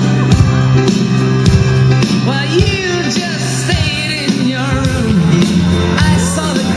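Rock music with a singer, over a steady bass line and drum hits.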